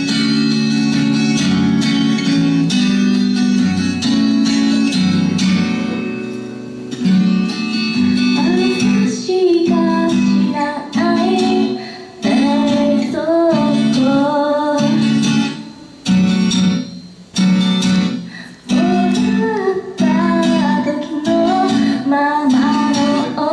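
Acoustic guitar strummed with a capo, playing alone for the first several seconds; then a woman's singing voice joins about eight seconds in, over the strummed chords, in phrases with short breaks between them.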